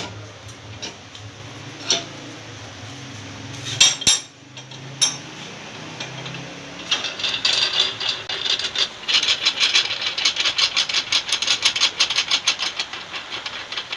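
Tyre rubber being worked with a hand rasp: a few sharp knocks in the first seconds, then from about halfway quick, steady scraping strokes, several a second.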